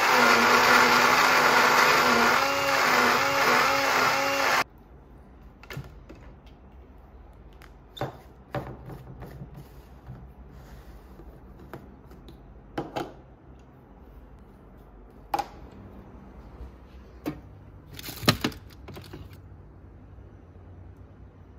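Small countertop blender running loud while blending leafy greens for green juice, its motor pitch wavering, then cutting off abruptly about four and a half seconds in. Scattered clicks and knocks follow as the plastic jar is twisted off the base and handled, the loudest near the end.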